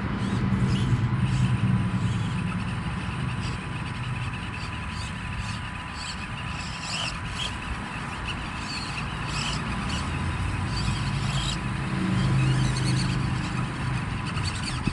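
Axial SCX24 micro RC crawlers working slowly over rocks: a low motor and gear hum that swells near the start and again near the end, with many small clicks from tyres and chassis on rock.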